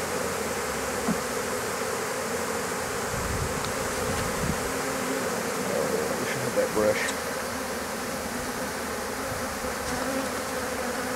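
A large swarm of honeybees buzzing steadily in an open hive box just after being shaken in. The hum swells briefly a few times about two-thirds of the way through.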